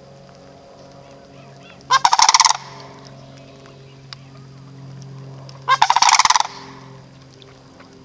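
Sandhill cranes giving two loud, rattling calls about four seconds apart, each lasting under a second.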